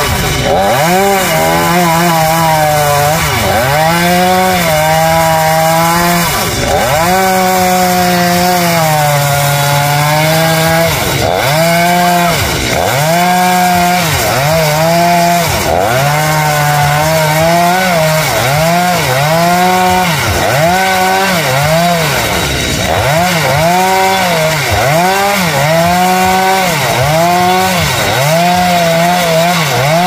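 Chainsaw cutting khaya (xà cừ) wood, the engine bogging down under load and revving back up about once a second as the bar is worked through the cut.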